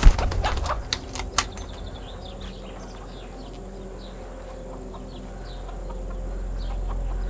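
A sharp knock and a few clicks and rustles in the first second and a half, then small birds chirping faintly over a low drone that slowly swells toward the end.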